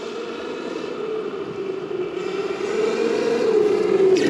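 Traxxas X-Maxx electric RC monster truck at full throttle: a steady brushless-motor and drivetrain whine with tyre noise on gravel, growing louder as it approaches.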